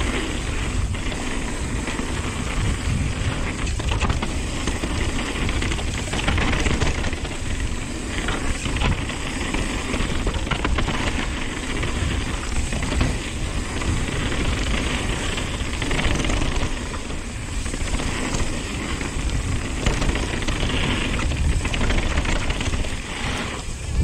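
Nukeproof Dissent 290 RS downhill mountain bike descending a dirt trail at speed: a steady rush of wind on the microphone and tyres on dirt, with frequent knocks and rattles from the bike over bumps.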